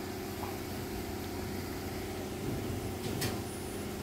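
Steady mechanical hum of a spray booth's ventilation fans, holding several constant low tones over a hiss, with a single short click about three seconds in.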